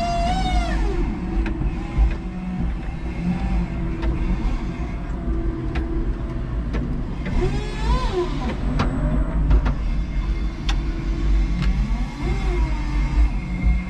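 A 5-ton electric forklift travelling with a load: a steady low hum and rumble in the cab, with electric motor whine rising and falling in pitch twice, at the start and about halfway through, and scattered clicks and knocks.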